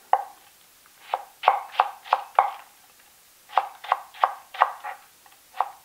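Kitchen knife cutting myoga (Japanese ginger) on a cutting board: runs of about five quick chops, about three a second, with short pauses between runs.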